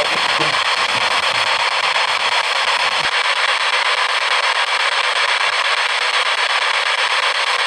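Spirit box, a radio rapidly sweeping the FM band, giving out loud steady static hiss, with one click about three seconds in.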